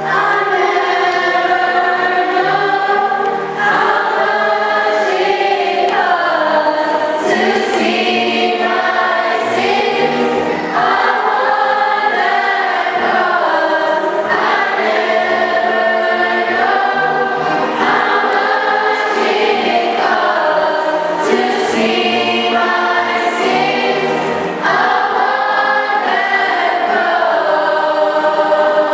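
A church choir singing a gospel song in held, flowing phrases.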